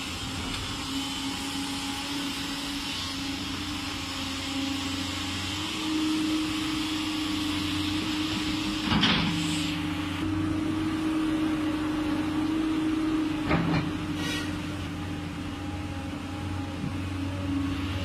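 JCB 205 tracked excavator's diesel engine running steadily under load while the bucket digs soil, its note rising a little about a third of the way in. A few sharp clanks of the bucket and boom, one about halfway through and two more a few seconds later.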